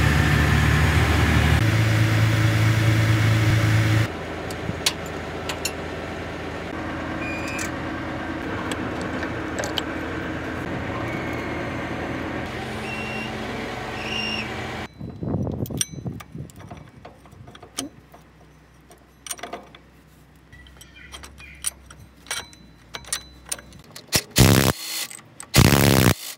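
A wheel loader's diesel engine running, loud for the first four seconds, then quieter with occasional squeaks while the boom lifts the gearbox on a chain. After about fifteen seconds the engine gives way to scattered metal clinks and knocks of hand tools, with two short loud bursts of noise near the end.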